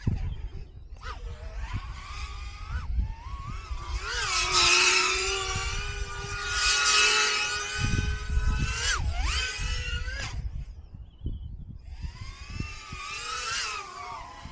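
FPV quadcopter's brushless motors whining as it flies, the pitch rising and falling with the throttle, loudest in surges about five and seven seconds in. The whine drops away briefly around ten seconds in, then returns, over a low rumble of wind on the microphone.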